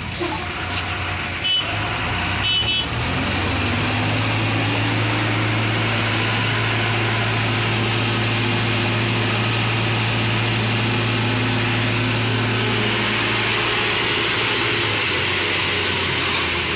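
Heavy diesel engine rising in revs about three seconds in, then running hard at steady high revs under load while working to free a tanker truck stuck in mud. Two short knocks come before the rise.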